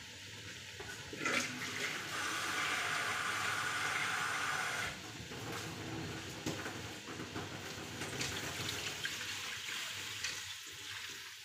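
Water running into a container for a few seconds, then poured from a plastic dipper into a wok steamer to top up its water. The running is loudest from about one to five seconds in.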